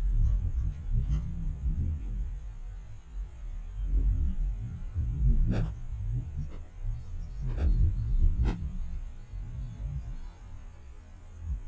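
Sit-on-top kayak being paddled: a low, uneven rumble that swells and fades, with a few sharp knocks in the second half.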